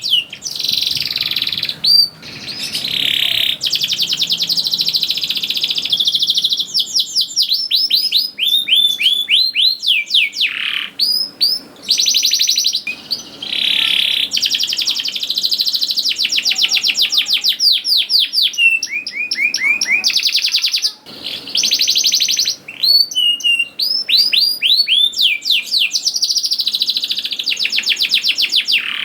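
Domestic canary singing a long, nearly unbroken song: fast rolling trills and rapid trains of downward-sweeping chirps, with only brief pauses.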